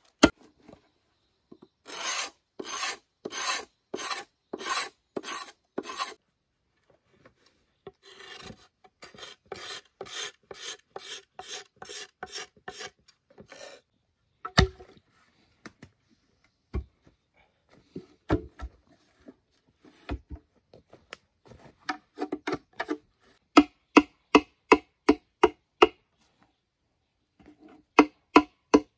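A hand tool rasping on bamboo in runs of even back-and-forth strokes, about two to three a second, with pauses between the runs. Scattered sharp knocks follow, then a run of shorter taps in the second half.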